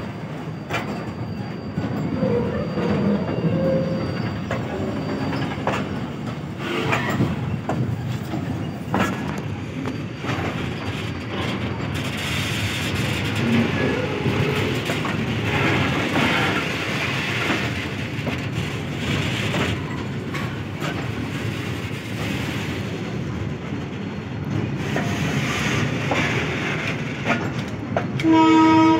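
Freight wagons of a container train rolling past at close range: a continuous rumble of steel wheels on rail, with scattered clacks as the wheels cross rail joints. Just before the end a short, loud pitched tone sounds.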